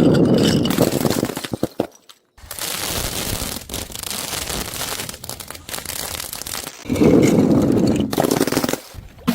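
Crunchy objects being crushed: dense crackling and crunching made of many rapid small cracks, heavier near the start and again about seven seconds in, broken by a brief silence about two seconds in.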